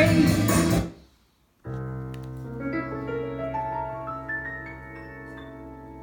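Music played over JBL Control CM 62 two-way loudspeakers. A loud song with singing cuts off about a second in; after a brief pause a new track starts with sustained keyboard notes entering one after another and slowly fading.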